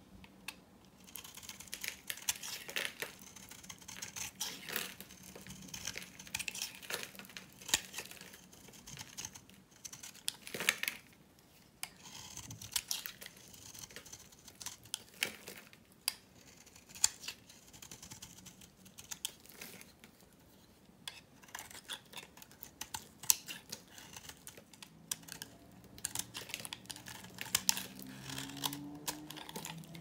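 A knife blade shaving thin slices off a hard, dried-out Palmolive bar soap, with dense crisp crackling and snapping as the dry soap breaks, starting about a second in. Flakes patter down onto a metal tile surface.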